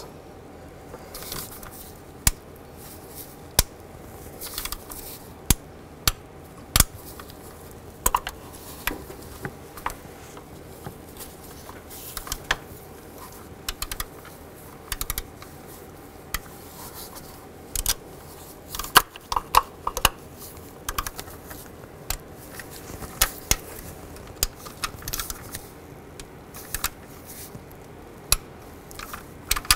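Click-type torque wrench being worked on bolts set to 21 ft-lb: short runs of ratchet clicks, with single sharp clicks spread through as bolts reach torque.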